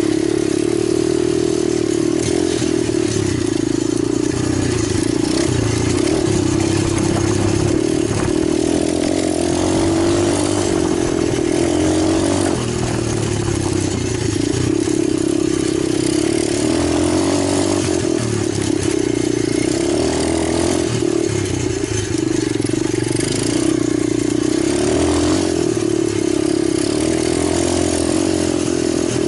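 Italjet 125cc pit bike engine running steadily for the whole stretch, its pitch wavering a little up and down.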